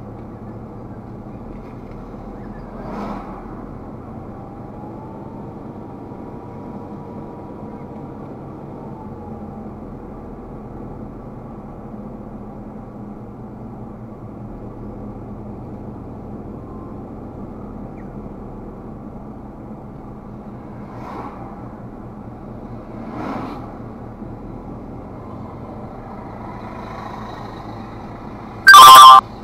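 Steady engine and road rumble inside a moving car's cabin. Near the end comes a brief, very loud tone lasting about half a second.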